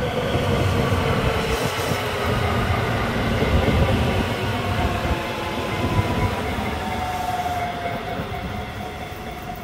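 JR West electric commuter train running in, with a steady low rumble of wheels on rail and the whine of its motors falling slowly in pitch as it brakes.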